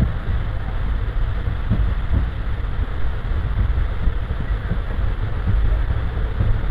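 Passenger train running on the rails, heard from a window seat in the coach: a steady low rumble of wheels and running gear with faint, irregular knocks.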